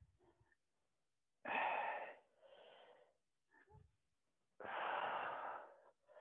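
A woman breathing hard through a wood-chopper swing exercise: two forceful exhales about three seconds apart, each followed by a quieter inhale.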